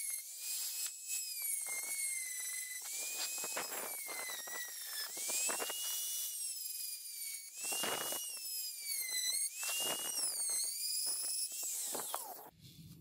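High-speed rotary tool whining as its thin bit grinds out the centre hole of a small metal disc. The pitch sags and recovers again and again as the bit bites and eases off, with a rough scraping under it. The whine stops near the end.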